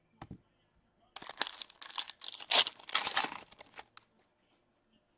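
Foil wrapper of a 2019-20 Upper Deck Series One hockey card pack being torn open and crinkled by hand, a dense crackling lasting about three seconds, after a soft knock near the start.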